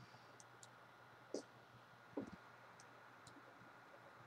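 Near silence with a few faint computer mouse clicks. The two clearest come about a second and a half and two seconds in.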